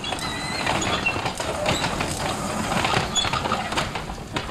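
Quarter-scale model streetcar rolling on its track, its wheels making irregular clicks and clacks against the rail.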